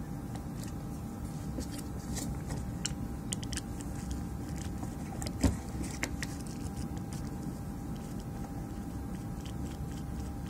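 Screwdriver working the screws on a power-supply board's metal heatsink strip: scattered small metallic clicks and scrapes, with one louder knock about five and a half seconds in, over a steady low background hum.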